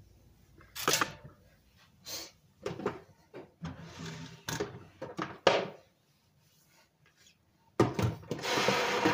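Kitchen countertop being cleaned by hand: plastic bottles knocked and set down, and a cloth wiped and rubbed across the surface in short swishes. About 8 s in, a louder, steady rubbing noise starts and carries on.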